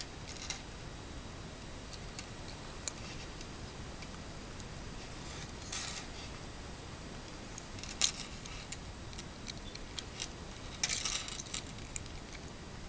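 Small, irregular clicks and light metallic taps from handling a gold-tone mechanical pocket watch and its chain, with a short cluster of rattling clicks about 11 seconds in, over a steady low hiss.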